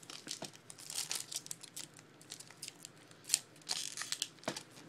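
Trading-card pack wrapper being handled and opened by hand: irregular crinkling and sharp crackles of the wrapper, with one louder snap a little past three seconds.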